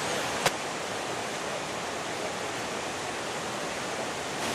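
Steady rush of a whitewater river, with one sharp click about half a second in.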